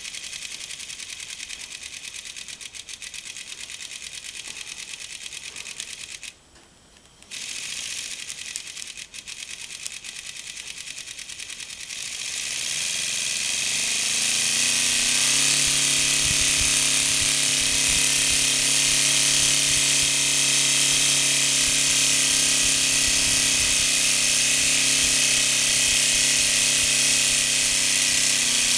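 Homemade mini four-cylinder radial air engine made of plastic, running on compressed air. It gives a fast, even clatter that cuts out briefly about six seconds in. From about twelve seconds in it speeds up, its pitch rising to a steady high buzz with loud air hiss.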